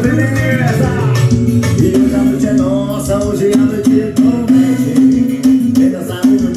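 A song with singing and plucked guitar over a heavy, repeating bass line, played loud through a car sound system.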